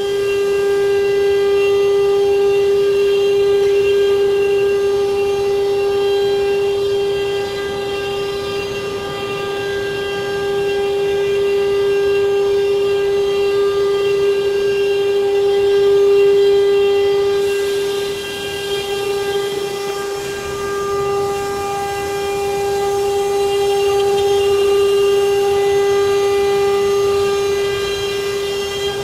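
CNC wood router spindle running at speed with a steady high whine, machining wood.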